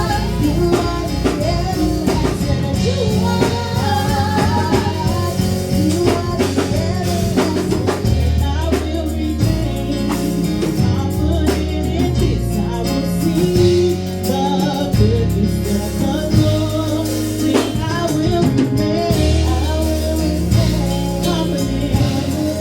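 Gospel praise music: singing over a drum kit and a low bass line that moves every second or two.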